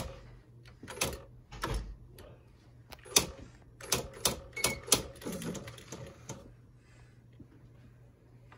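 Smith Corona SC 125 electronic typewriter being typed on: a run of sharp, irregular print strikes that stops about six and a half seconds in.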